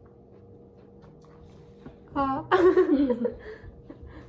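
A young woman laughing briefly, about two seconds in, the laugh falling in pitch over about a second, over a faint steady room hum.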